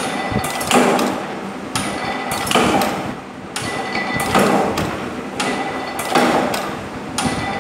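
Mechanical power press stamping in repeated strokes, about one every two seconds, four in all. Each stroke is a sharp click followed by a clattering metal strike of about half a second, over a steady machine hum.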